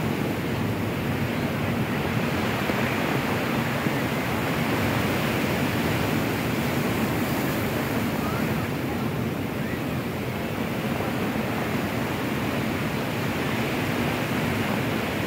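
Steady rush of sea waves breaking on the shore, mixed with strong wind blowing across the phone's microphone.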